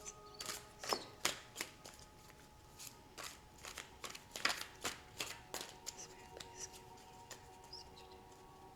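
A tarot deck being shuffled by hand: a run of quick, irregular card snaps and swishes that grow sparser after about five seconds, over faint steady background music.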